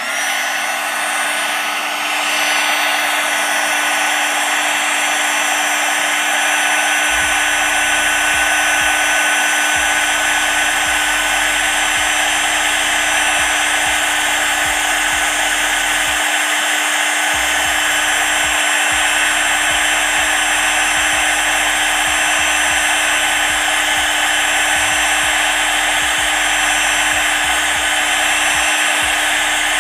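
Heat gun switched on and running steadily: a fan-motor whine over a rush of hot air, shrinking heat-shrink tubing over a spliced wire connection. It comes up to full level over the first couple of seconds and then holds constant.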